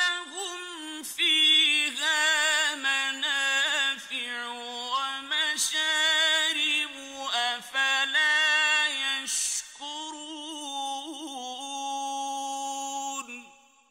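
A male Quran reciter chanting in ornate, melodic tajweed. It is one long phrase in a high voice, with quick ornamented pitch runs and wavering held notes, closing on a long held note that fades out near the end.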